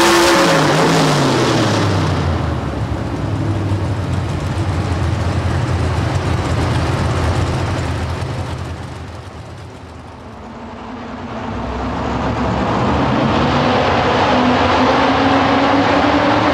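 Pulling truck engine at high revs, then falling in pitch as it is throttled back at the end of a pull and running low and steady. After a dip near the middle, another pulling truck's engine rises slowly in pitch as it revs up to begin a pull.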